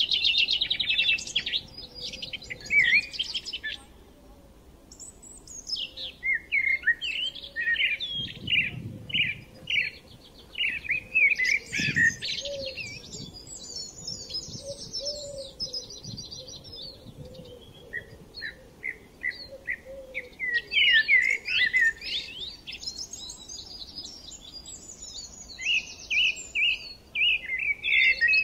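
Birds chirping and trilling in several bursts of quick calls and fast trills, with short lulls between them.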